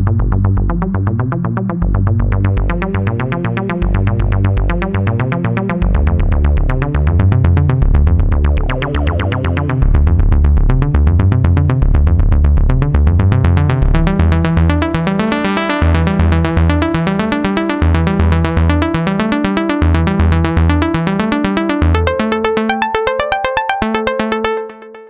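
A u-he Zebra 2 software synthesizer preset playing an electronic sequence: a pulsing bass line under fast, rapidly repeating synth notes. It grows brighter about halfway through, thins out near the end and then fades away.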